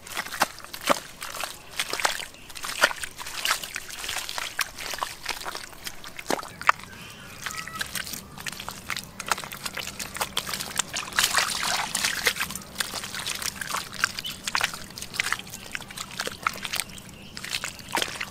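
Irregular wet sloshing and squelching of hands working through mud and shallow water while feeling for fish.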